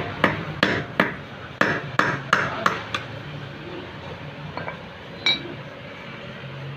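A hammer striking a Yamaha Jupiter Z motorcycle clutch housing, about eight sharp blows in the first three seconds, then a few lighter taps and one last strike. This is the housing being knocked apart to get at its rubber dampers.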